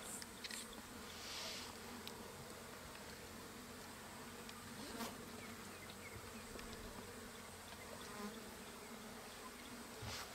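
Flies buzzing around a fresh carcass, faint and steady, with a few soft clicks.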